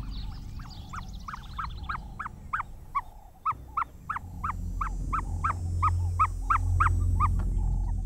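Ostrich chicks peeping: short, evenly repeated chirps, about three a second, over a low steady rumble.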